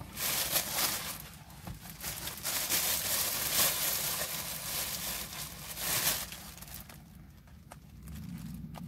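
Food wrapper crinkling and rustling for about six seconds as a sandwich is unwrapped by hand, then a few soft clicks of handling. A low steady hum starts near the end.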